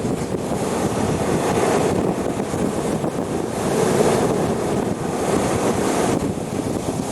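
Waves breaking and washing on the shore, swelling and easing, with wind buffeting the microphone.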